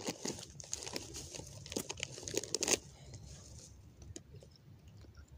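Crinkling and rustling of something being handled: a quick run of crackles and rustles for about the first three seconds, then fainter.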